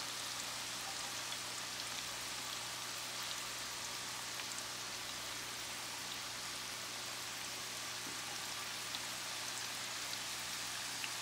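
Fresh-cut potato fries deep-frying in hot cooking oil: a steady sizzle with small scattered pops.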